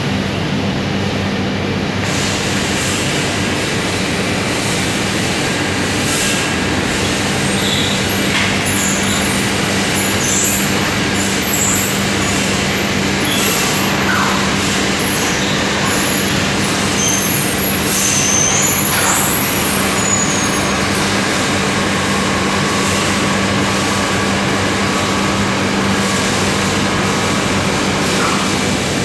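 Steady industrial din in an acid pickling shop for wire coils: a constant low machine hum under an even hiss, with scattered short high squeaks through the middle.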